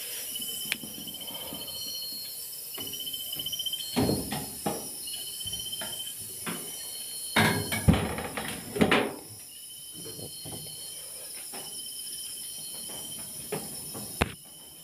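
Crickets chirping in short repeated trills. Several loud knocks and bumps sound over them, a couple about four seconds in, a cluster around eight seconds in, and one near the end, from a door and someone moving about inside a corrugated-iron hut.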